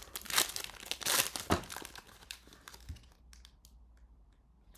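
Foil trading-card booster pack wrapper being torn open and crinkled, with several loud rustles in the first two seconds, then a few faint light clicks.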